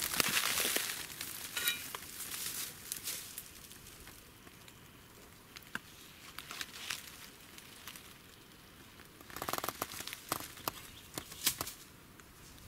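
Dry grass, last year's leaves and twigs crackling and snapping under footsteps. The crackles come in dense clusters near the start and again in the last few seconds, with only scattered ticks in between.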